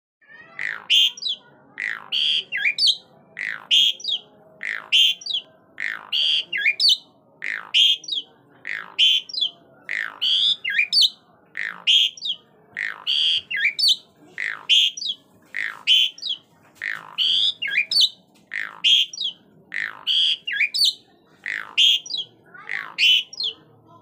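Caged Asian pied starling singing: a loud two-part phrase, a steeply falling whistle followed by a shorter higher note, repeated about every second and a half.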